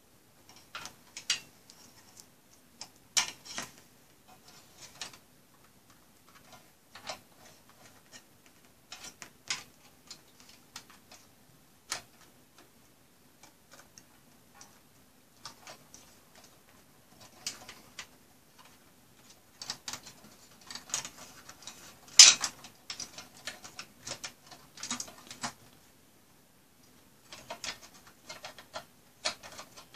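Irregular clicks, taps and rustles of cables being handled, pushed into place and clipped inside a metal server chassis, with a denser run of clicks and the loudest snap about two-thirds of the way in.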